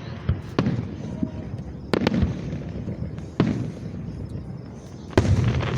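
Aerial fireworks shells bursting: about six booms, irregularly spaced a second or so apart, each with a low echoing tail, the loudest coming near the end.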